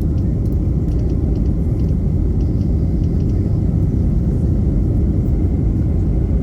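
Steady, loud low rumble of an Airbus A320neo heard from inside the cabin during takeoff: engine and airflow noise, with a few faint light ticks over it.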